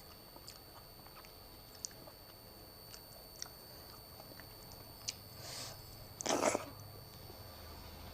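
A person chewing a meal of khichdi, dal, curd and cucumber close to the microphone: faint wet mouth clicks, then a louder burst of chewing about six seconds in.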